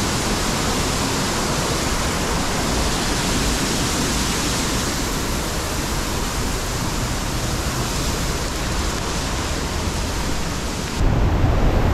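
Waterfall pouring over rock, a steady rushing noise of falling water. Near the end the sound cuts abruptly to a duller, lower rumble.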